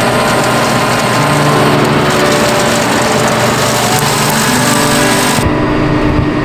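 John Deere 6125 tractor running steadily at working revs, driving the PTO spinners of a fertilizer spreader cart as it throws pellets. About five seconds in the sound turns duller, heard from inside the tractor cab.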